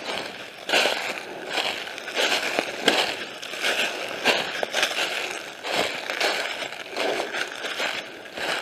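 Footsteps crunching through dry leaf litter and twigs on a woodland floor at a steady walking pace.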